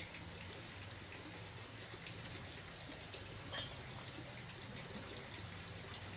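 Light ticks and taps of small motorcycle engine parts and hand tools being handled, with one sharp clink about three and a half seconds in, over a steady low hum.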